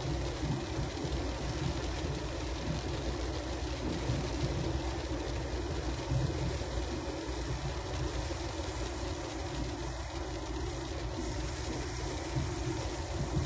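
Steady engine and road noise heard from inside a car driving on a wet road in the rain.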